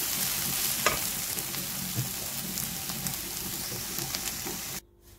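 Potato and carrot bhaji sizzling in a frying pan while a spatula stirs and scrapes it, with a sharp click about a second in. The sizzle cuts off suddenly near the end.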